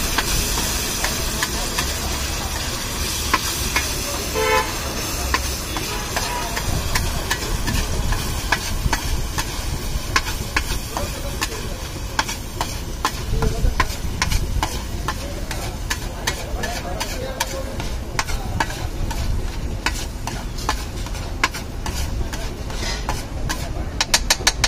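A metal spatula scrapes and clicks against a large flat iron griddle as a spicy masala mixture is stirred and spread, over the steady sizzle of the mixture frying. The clicks come thick and fast near the end. A short vehicle horn sounds about four and a half seconds in.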